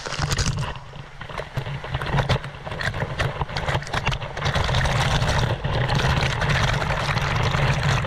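Stream water from a small rock waterfall pouring over a person and splashing directly onto the camera: a loud, dense rushing and spattering with a heavy low rumble where the water strikes the microphone. It starts abruptly and grows a little louder about halfway through.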